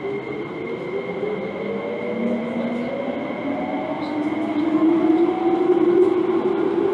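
Running sound of an MTR Ma On Shan Line IKK-Train electric multiple unit heard on board: its traction motors whine in several tones that rise steadily in pitch and grow louder as the train picks up speed, over wheel-on-rail rumble and a steady high whistle.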